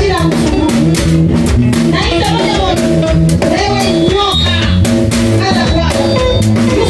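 Live gospel worship band, with bass guitar, guitar and drum kit playing a steady beat and a voice singing over it through the microphones.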